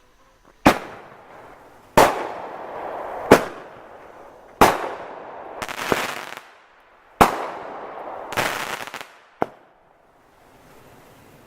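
Consumer fireworks going off: five loud sharp bangs a little over a second apart, then a sixth, smaller one near the end. Each bang trails off in a hiss, and two stretches of rapid crackling fall between the later bangs.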